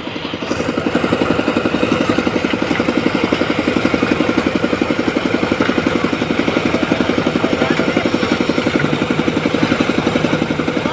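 Small engine running steadily with a fast, even pulse.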